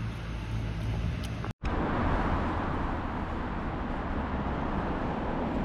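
A low steady background rumble, then after an abrupt cut about a second and a half in, louder street ambience: a steady wash of road-traffic noise.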